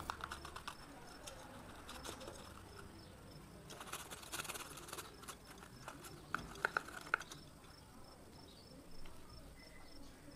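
Activated charcoal granules poured from a small plastic scoop down a paper funnel into a glass light bulb, giving faint light clicks and pattering, with short bursts of quick rattling about four seconds in and again near seven seconds. A faint high tick repeats evenly in the background.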